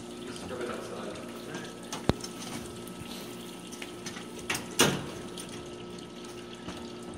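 Gewürztraminer juice pouring in a steady stream from a basket wine press's spout into a stainless steel bucket, over a faint steady hum. A sharp click about two seconds in and a louder metal clank near five seconds come from the press's ratchet screw head as its lever is worked.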